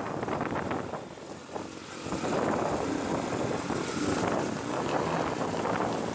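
Motorcycle running on the road with wind rushing over the microphone. It drops quieter briefly about a second in, then is louder again from about two seconds in.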